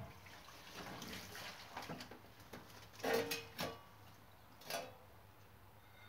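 Water sloshing as a rubber inner tube is handled and pushed under in a container to check it for leaks, with a few short, sharper sounds, the loudest about three seconds in.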